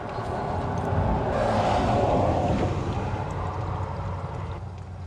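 A vehicle passing on the road, its noise swelling to a peak about two seconds in and then fading away.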